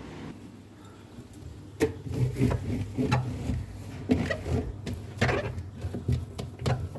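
Irregular rubbing, scraping and knocking from hands cleaning a refrigerator. The noises start about two seconds in and keep coming at an uneven pace.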